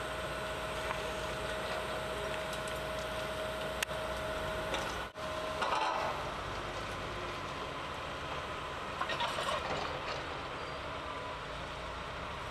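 Heavy machinery running steadily: the engine and hydraulics of a rail-mounted excavator with a chain-trencher boom. A thin steady whine stops after a brief break in the sound about five seconds in, and the noise is rougher after that.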